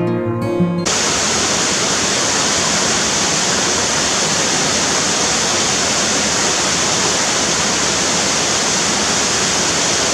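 Music cuts off abruptly about a second in, giving way to a steady, even rush of running water.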